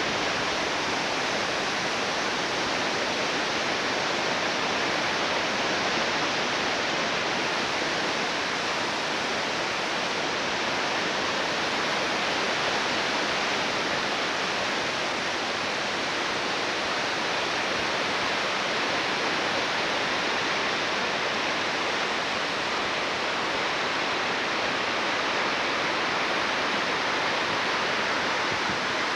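Creek in flood, fast water rushing in a steady, unbroken noise with no let-up.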